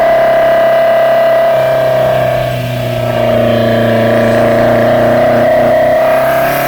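Toyota 4A-GE 16-valve four-cylinder with individual throttle bodies running at steady revs, a loud, even, tonal intake drone. It eases slightly about two and a half seconds in, then picks back up.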